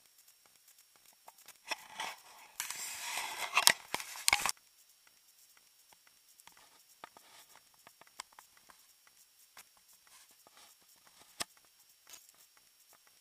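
About two seconds in, a burst of close rustling and crackling lasts about two seconds and ends in a couple of sharp cracks. Scattered faint clicks run through the rest.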